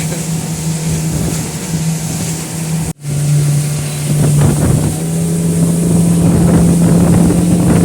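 Big Suzuki outboard engine running flat out as a speedboat skims along at about 70 km/h, a steady engine drone under wind noise on the microphone. The sound cuts out for an instant about three seconds in.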